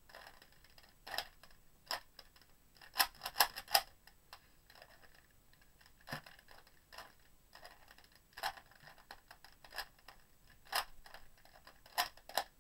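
Shengshou Wind speed cube being scrambled: its plastic layers turning with irregular clicks and clacks, with a quick run of loud turns about three seconds in.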